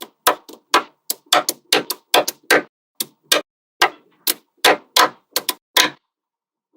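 Small magnetic balls snapping onto one another one at a time: a run of sharp, separate clicks at an uneven pace, about three or four a second, stopping shortly before the end.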